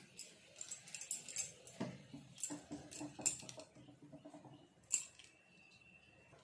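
Light handling clatter: a quick string of small clicks and clinks, then a single louder knock about five seconds in.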